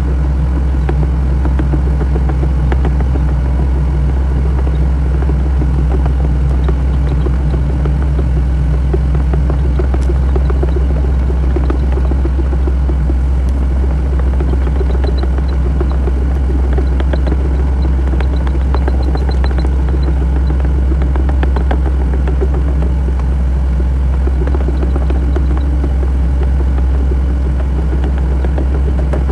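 SANY mini excavator's diesel engine running steadily with a deep hum, with scattered light clicks and clanks over it, most of them in the middle stretch.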